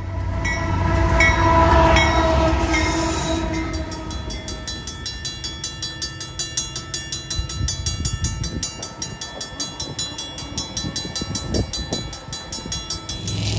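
Freight train's locomotive horn sounding over the low rumble of the engine, loudest about two seconds in and fading out by about four seconds. A fast, even clatter from the passing train follows.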